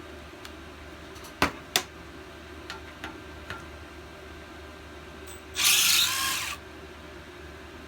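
Two sharp clicks of tools being handled, then a power driver runs for about a second to back out a Torx screw holding the gas tank on a small engine, its pitch shifting as it spins.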